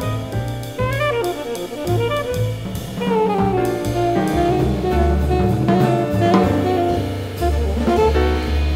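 Live small-group jazz: saxophone lines over piano, double bass and drum kit with cymbals.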